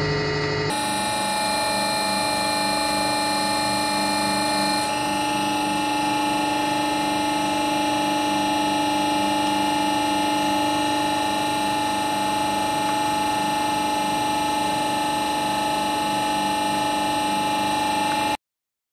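Hydraulic press's pump motor running with a steady whine and hum. It cuts off abruptly near the end.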